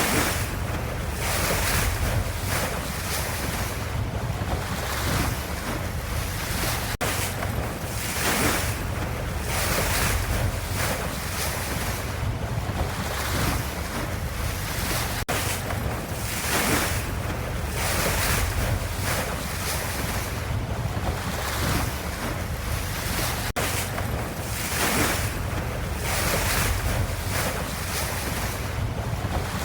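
Ocean waves: a steady rush of surf swelling and easing every couple of seconds over a low rumble, repeating as a loop about every eight seconds.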